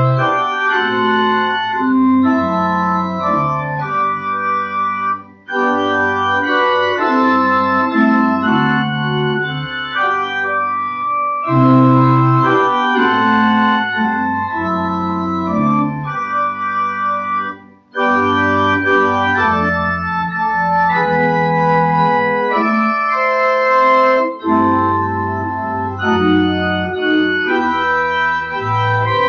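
Church organ playing a slow piece in sustained chords, with brief breaks between phrases about five and eighteen seconds in.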